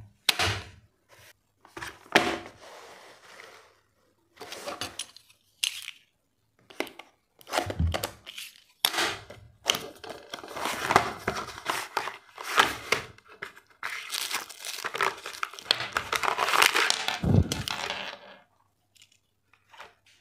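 Unboxing noises from a neckband earphone's cardboard box: the box and its plastic tray slid, scraped and knocked, with the packaging rustling and crinkling. The sound comes in irregular bursts with short pauses.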